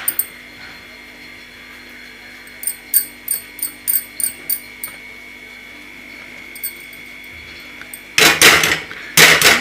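Block of mozzarella rubbed over a handheld metal grater, a short rasp at each stroke, about three a second in two runs. Near the end comes a louder, noisier clatter of the metal grater over the pan.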